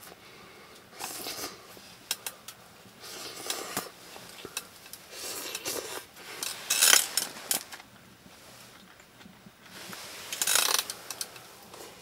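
Irregular scrapes, rubbing and light clinks of things being handled, such as camp cookware and utensils, coming in short bursts every second or two, the loudest about seven seconds in.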